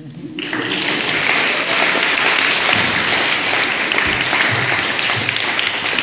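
Audience applauding, starting about half a second in and quickly swelling to a steady level.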